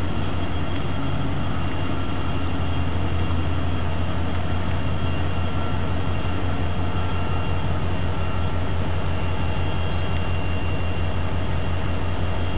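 Diesel freight locomotive running as it approaches slowly, a steady low engine rumble that holds level throughout.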